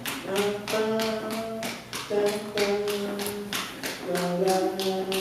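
A drummer taps a steady pulse on the drum kit, about four strokes a second. Over it a man's voice sings a melody line in held, changing notes.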